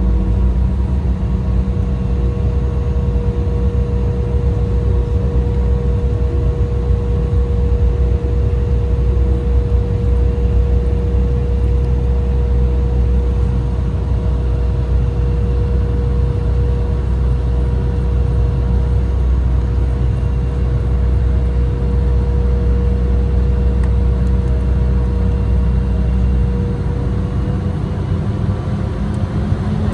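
Embraer 175's turbofan engines running steadily, a constant whine over a low rumble; near the end the whine starts to rise as the engines spool up.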